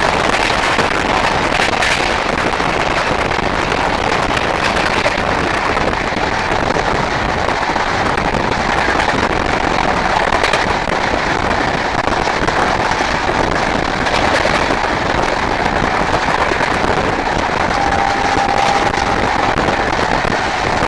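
A moving train heard from on board: steady loud rushing and rattling of the running train, with wind buffeting the microphone. A faint steady tone comes in near the end.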